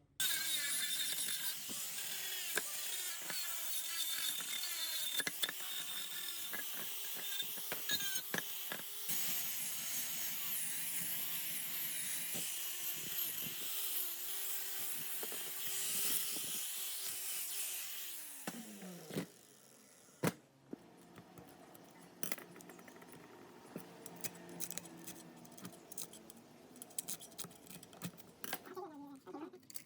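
Handheld power tool running hard against a workpiece, a dense high hiss over a wavering motor tone, switched off about 18 seconds in and winding down with a falling pitch. Quieter clicks and knocks of handling follow.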